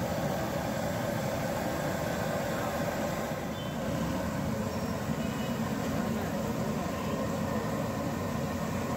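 Steady din of street traffic with a constant rumble and hiss and no distinct single event.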